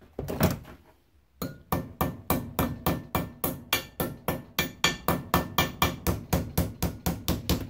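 Small hammer striking the edge of a thin sheet-metal strip held in a bench vise, a steady run of even, ringing blows at about four a second, starting about a second and a half in after a brief clatter. The blows are folding the strip's edge over into the beginnings of a curve.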